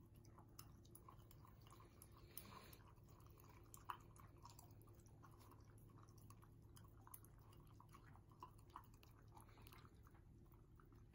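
Shiba Inu eating from a ceramic bowl: faint, irregular small clicks of chewing and licking.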